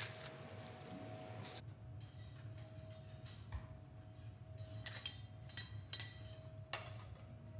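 Pepper mill grinding black pepper over a raw wagyu fillet for about a second and a half, stopping abruptly. Then a few light clinks and taps of metal utensils, over a steady low hum.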